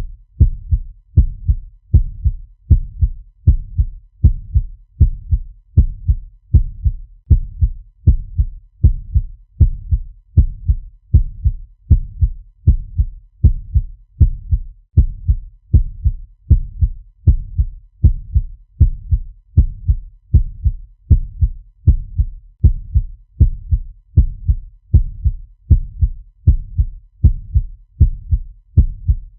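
Fast heartbeat sound effect: a steady, even rhythm of low lub-dub double thumps, over one beat a second, looping without a break.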